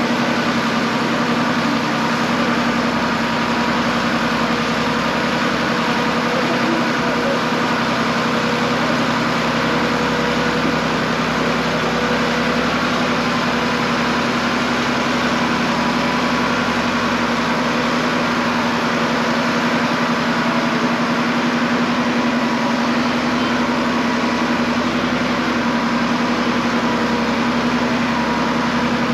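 An engine running steadily at an even speed, with a constant low hum.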